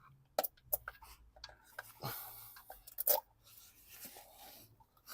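A cap being pried off and handled in a car's engine bay: several sharp clicks and knocks, with short scraping, crunching rustles in between.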